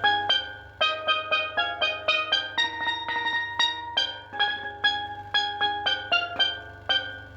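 A battered, rusted tenor steel pan played solo: a melody of single struck notes, about three or four a second, each ringing briefly and fading. The dented pan is out of tune.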